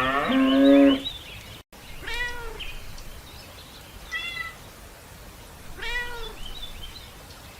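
The end of a cow's moo, the loudest sound, then after a cut a domestic cat meowing three times, a few seconds apart. Each meow is about half a second long and rises then falls in pitch.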